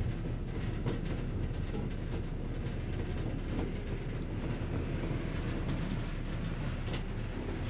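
A 1977 KONE inclined elevator car running up its sloped track, heard from inside the car: a steady low rumble with a few faint ticks.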